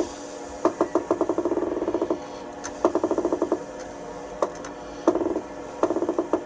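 A mini lathe's four-jaw chuck is turned by hand while a workpiece is centred in it, giving about four short bursts of rapid metallic clicking from the spindle, with a couple of single clicks between them.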